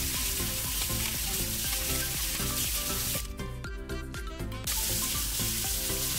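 Tap water running and splashing into a stainless steel sink while plastic spiralizer parts are rinsed under it; the water hiss drops out for about a second and a half in the middle, then resumes. Light background music plays underneath.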